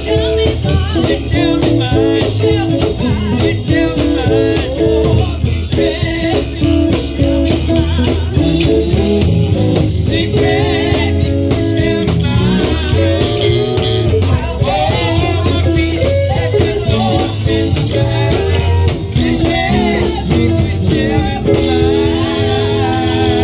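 Live praise-band music: an electric bass guitar played up close, with a strong low bass line, under an electric guitar.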